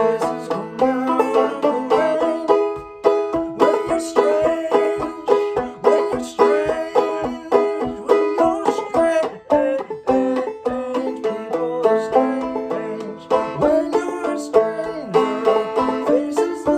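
Five-string banjo played clawhammer style in A minor tuning: a steady stream of brisk plucked notes and brushed strums picking out a minor-key melody.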